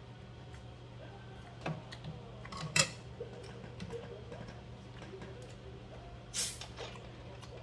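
Two sharp knocks in the first three seconds, the second the louder. About six seconds in, a short hiss of escaping gas as the screw cap of a plastic cola bottle is twisted open.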